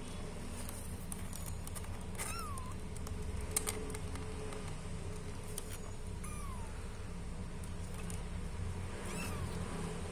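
Young kitten mewing three times, each a short high call falling in pitch, with a few sharp clicks over a steady low hum.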